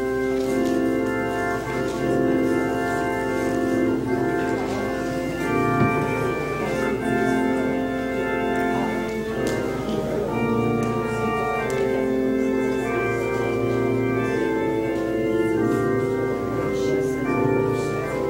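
Church organ starting up and playing held chords: the postlude at the close of a service.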